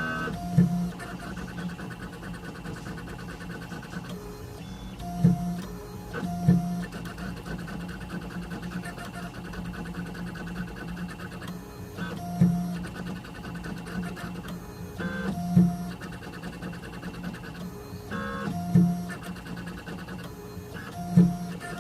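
Small CNC engraving machine running: a steady motor hum with rapid stepper-motor ticking and whirring. A louder short surge comes every few seconds as the head makes its moves.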